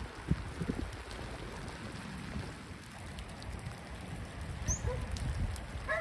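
Steady rain falling on open lake water: an even hiss with occasional ticks of single drops, over a low wind rumble on the microphone. A short bird chirp comes near the end.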